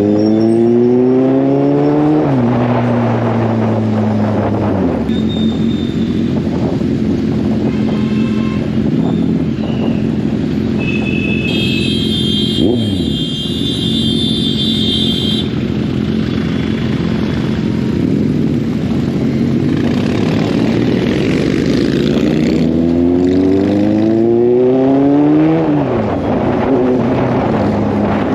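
Kawasaki Z800 inline-four engine under way: it revs up and drops at a gear change at the start, runs steadily through the middle, and revs up and shifts again near the end. A high steady tone from another source sounds for a few seconds in the middle.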